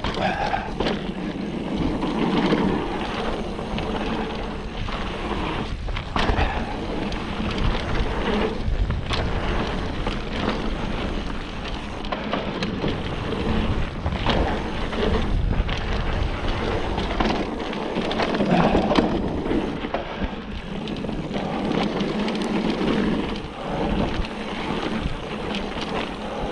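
Orbea Laufey hardtail mountain bike descending a dry dirt trail at speed: wind buffeting the microphone and tyres rumbling over the ground, with frequent clicks and rattles from the bike as it hits bumps.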